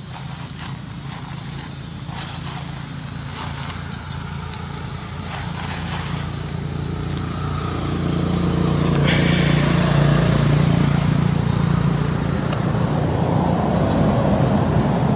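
Passing motor-vehicle traffic: a steady engine hum swells over several seconds, is loudest about ten seconds in and stays loud. A few light clicks come before it.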